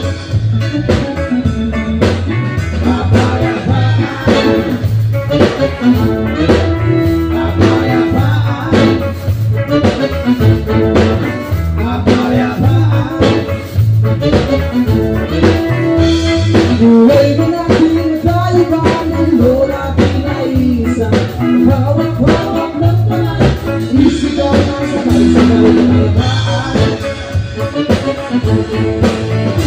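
Live band playing a song: a singer over electric bass, drum kit, guitar and keyboards, with a steady beat throughout.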